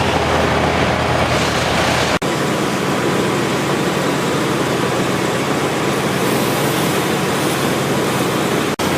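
An engine running steadily at constant speed on tree-removal equipment, breaking off for an instant about two seconds in and again near the end.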